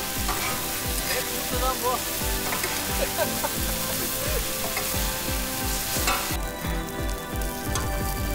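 Stuffed idlis sizzling as they fry in oil on a large flat griddle.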